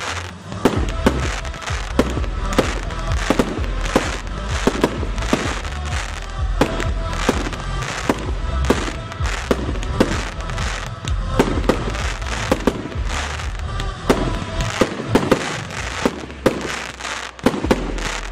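Fireworks bursting in quick succession, about two to three sharp bangs a second with crackling between them, over music.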